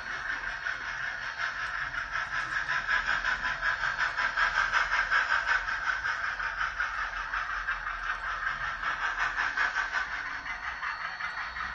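Model steam locomotive's chuffing, a hissy beat in a quick, even rhythm as it pulls a passenger train around a curve. It swells toward the middle and eases off near the end.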